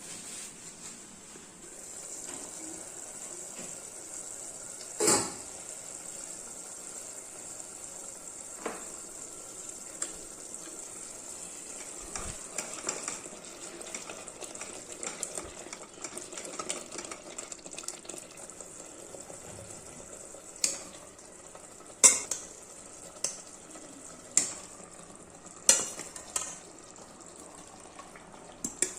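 Food frying with a steady sizzle while it is stirred, the stirring utensil scraping and knocking against the cooking pot now and then. A run of sharp knocks comes in the last third.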